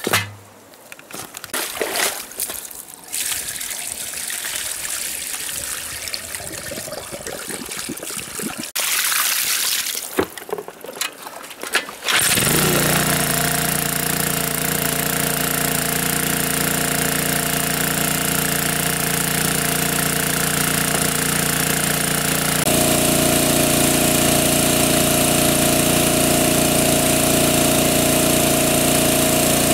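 Uneven splashing and handling noise for about twelve seconds, then a water pump's engine comes in suddenly and runs steadily, its tone shifting slightly about ten seconds later.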